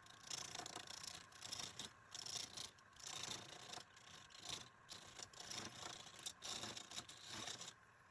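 Irregular hand scrubbing strokes, a scratchy brushing sound repeated about once or twice a second, stopping shortly before the end.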